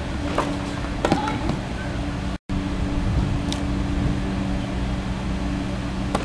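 Steady low outdoor hum with a few sharp, single knocks of a tennis ball: two in the first second or so, one past the middle, and one as the serve is struck at the very end. The sound cuts out for an instant just before the middle.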